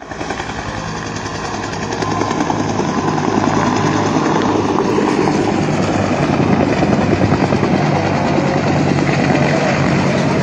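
Military helicopter flying low, its rotor chopping steadily over the engine noise, growing louder over the first couple of seconds and then holding.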